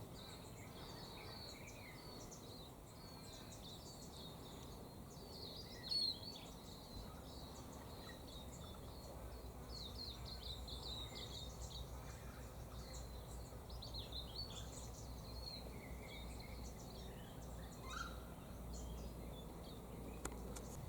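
Faint outdoor ambience: birds chirping and twittering in high, short calls throughout, with one louder chirp about six seconds in. A low steady rumble comes up underneath from about seven seconds on.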